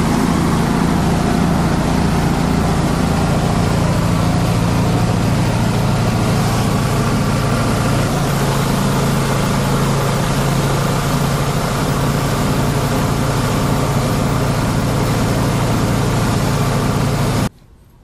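Multi-purpose chopper-shredder machine running steadily under load: a loud, constant low engine drone with a wide hiss of material being shredded over it. It cuts off suddenly near the end.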